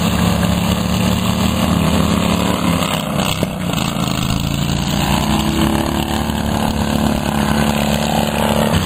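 Racing lawn mower engines running loud and steady, with a brief dip about three and a half seconds in.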